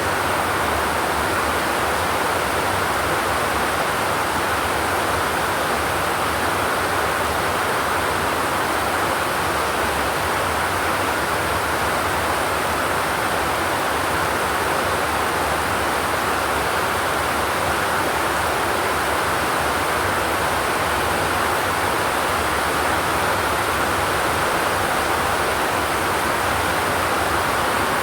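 Steady rain without thunder: an even, unbroken hiss with no single drops or claps standing out.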